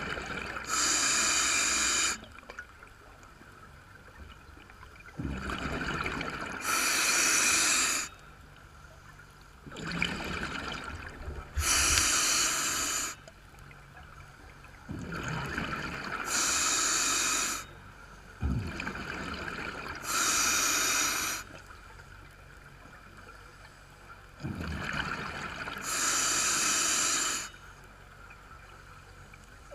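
Scuba diver breathing through a regulator underwater: each breath a hiss followed by a louder rush of exhaled bubbles, about six breaths, one every five seconds or so.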